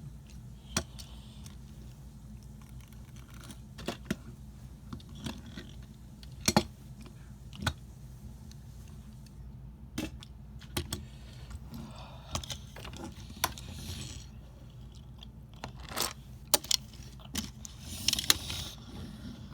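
Irregular sharp clicks and brief light clattering over a steady low hum, like small hard objects being handled or keys being tapped.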